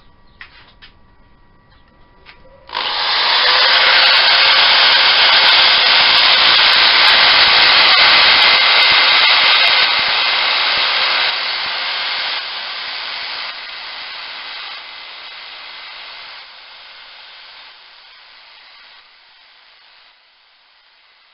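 Sandpaper on a spinning elm dish on a wood lathe: a loud, steady rushing hiss that starts suddenly a few seconds in, then grows quieter in a series of steps until it is faint near the end.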